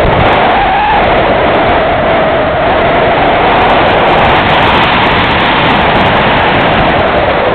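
Loud, steady wind noise rushing over the microphone of an open-seat Goat2 ultralight sailplane gliding down on its landing approach, with no engine, and with a whistle-like tone in it that wavers in pitch.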